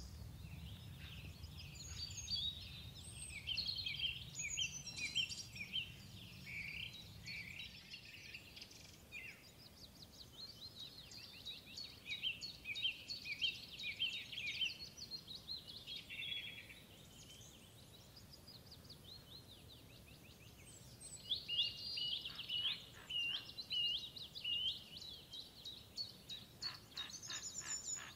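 Small songbirds chirping and singing in fast, high, twittering phrases, several overlapping, with short lulls between bursts. A faint low rumble underneath fades out about eight seconds in.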